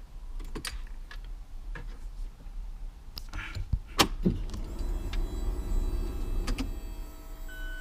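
Clicks as the ignition key of an Alfa Romeo 4C is switched on with the engine off, then a small electric pump motor whirring for about two seconds as the car's systems power up. A steady electronic warning tone starts near the end.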